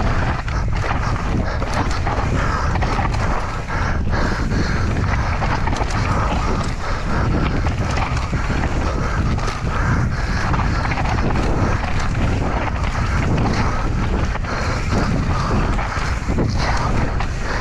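Mountain bike riding down a dirt trail: tyres rumbling over the ground with constant clicks and rattles from the chain and frame over bumps, and wind rushing over the microphone.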